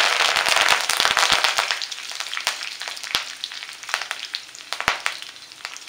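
Fresh curry leaves frying in hot coconut oil with mustard seeds: a loud sizzle that is strongest at first and dies down over a few seconds, with sharp pops and crackles throughout that grow sparser.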